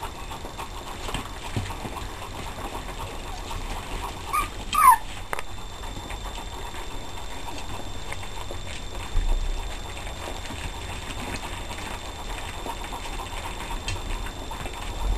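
A litter of puppies eating together from one dish, with steady lapping, chewing and jostling. About five seconds in, one puppy gives a short, high squeal.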